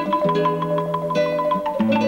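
Instrumental band music led by a marimba playing quick repeated notes over a sustained bass line. The bass moves to a new, lower note near the end.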